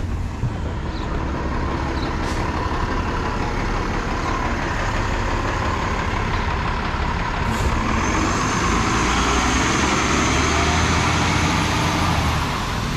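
City transit bus driving, a steady engine and road noise with a low rumble. A faint rising whine comes in about eight seconds in.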